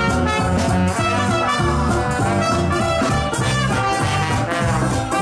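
Live traditional jazz band playing a swing tune, with trumpet and trombone over banjo and a moving bass line.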